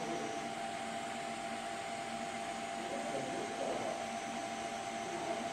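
Steady mechanical hum of background machinery, such as ventilation or electrical equipment, with faint murmur underneath.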